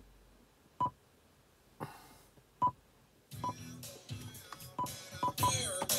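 Short single touch-feedback beeps from a car's Android touchscreen head unit as it is tapped, about a second in and again near the middle. Music starts playing through the car's speakers about three seconds in and grows louder, with a few more beeps over it.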